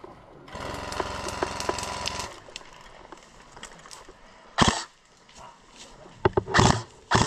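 An airsoft electric gun fires a full-auto burst, a fast even buzz lasting about two seconds. A few loud, short rustles and thumps follow near the end.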